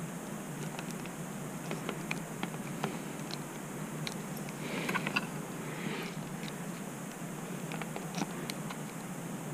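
Small scattered clicks and handling noise as hands work the factory seat's wiring connector and spade terminals, with a short scraping rustle about five seconds in, over a steady low hum.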